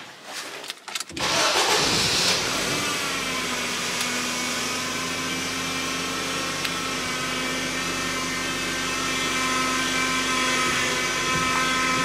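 Mk1 Ford Focus engine started after a few clicks: it catches about a second in and settles into a steady idle, driving the freshly refilled and bled hydraulic power steering pump.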